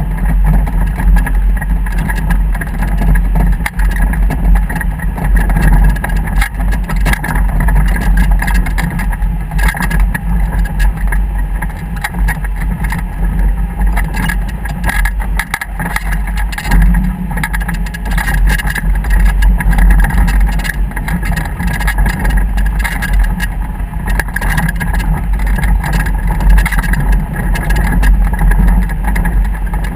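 Motorboat running steadily underway, a continuous engine sound over a deep, steady low rumble.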